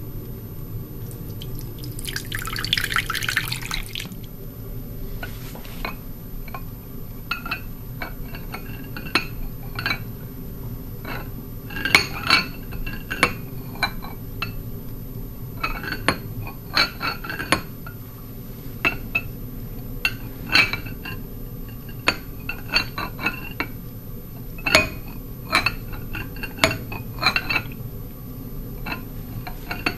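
Liquid pours from a jug into a glass bowl for about two seconds, then comes a long run of irregular sharp clinks and knocks as a spotted auger shell (Oxymeris maculata) is turned by hand against the glass bowl as a screw pump.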